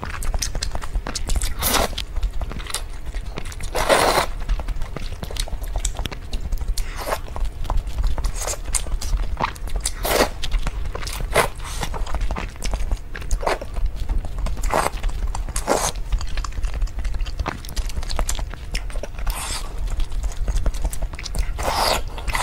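Close-miked eating sounds: noodles and broth slurped from a spoon, with wet chewing and mouth smacks in between. Several longer slurps stand out among the shorter sounds, over a steady low hum.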